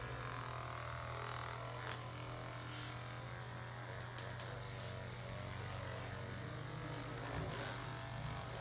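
A steady low hum, with three quick sharp clicks close together about four seconds in.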